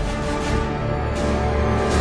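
Intro theme music with a steady pulsing beat, growing louder.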